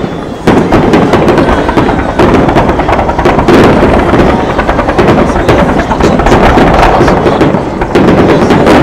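Fireworks barrage going off in rapid succession: a dense, continuous run of bangs and crackle like machine-gun fire, building up about half a second in.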